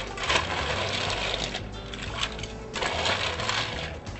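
Ice cubes clattering into a rocks glass in two rushes, filling it to the top.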